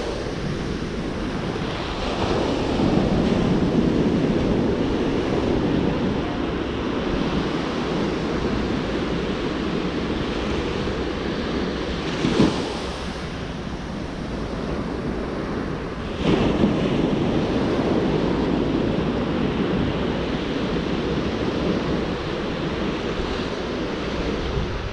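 Ocean surf washing onto a beach, a steady rush that swells and eases as waves come in, with wind buffeting the microphone. A short sharp knock about twelve seconds in.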